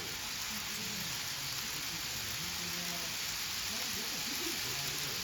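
Steady hiss of room noise with people talking indistinctly in the background.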